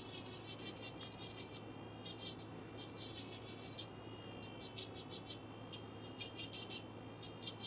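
Serio electric nail drill running with a thin diamond bit: a steady high-pitched whine whose pitch wavers slightly under load, with repeated bursts of scratchy grinding as the bit is pushed along the side edge of a toenail to grind off the rough edge.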